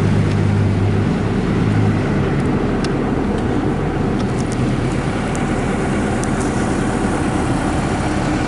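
Engine idling steadily: a low, even hum with a few faint high ticks over it.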